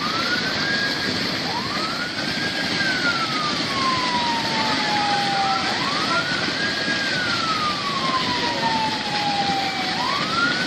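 A siren wailing in slow cycles: each one rises quickly, then falls slowly over about four seconds. Underneath is a steady rush of floodwater.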